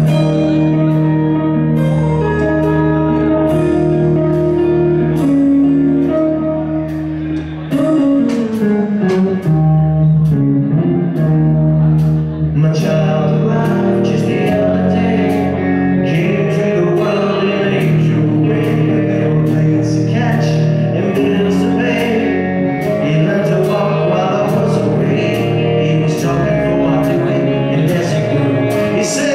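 Live rock band playing a slow song on guitars, bass and drums, with a man singing over it. The sound grows fuller, with more cymbal strokes, about halfway through.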